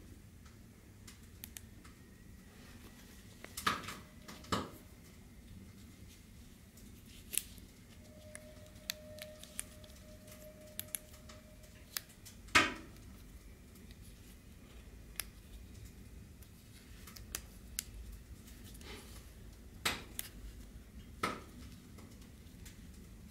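Handling noise of a small aluminium flashlight and its headband holder: scattered light clicks and taps, with a few sharper clicks, the loudest about halfway through, as the light is pushed into and worked out of the holder.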